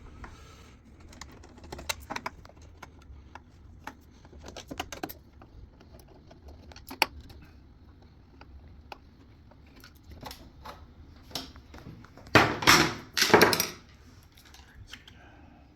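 Small metal tool clicks and clinks as screws are undone with a 5mm Allen key and handled, scattered irregularly, with two louder scraping noises of parts being handled about twelve to fourteen seconds in.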